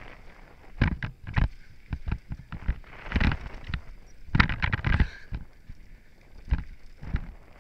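Downhill mountain bike clattering over a rough dirt trail: irregular knocks and rattles from the bike over bumps and stones, with two longer stretches of gritty crunching as the tyres run through loose dirt and gravel.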